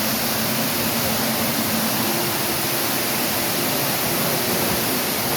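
Steady rush of Ruby Falls, an underground waterfall in a cave, falling into its pool.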